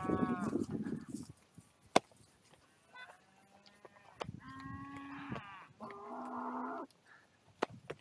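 Cattle bawling as they are driven along: several calls, the longest two about four and a half and six seconds in, with scattered knocks of hooves on stony ground.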